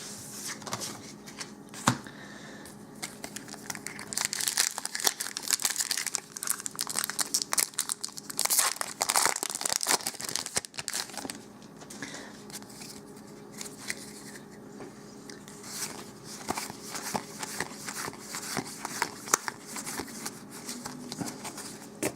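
Dark Ascension booster pack's foil wrapper crinkling and being torn open, densest and loudest in the middle, then lighter rustling and clicking as the pack is handled.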